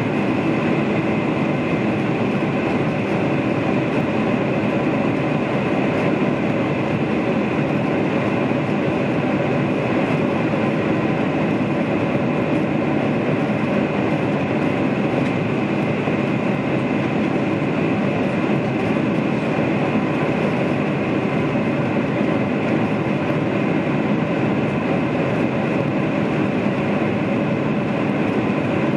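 Steady cabin noise of a Boeing 747-400 climbing out after takeoff: its jet engines running at high power and the rush of air past the fuselage, heard from inside the cabin over the wing. The noise is even throughout, with a faint steady whine over the rumble.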